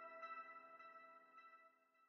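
Soft outro music fading out: a held ringing chord with a few faint soft notes on top, dying away to silence near the end.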